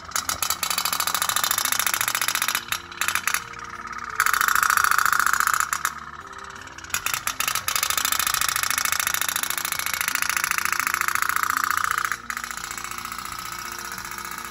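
Toy pop-pop steam boat running on water, its flame-heated boiler making a fast, even putt-putt rattle that drops out briefly a few times. Background music plays faintly underneath.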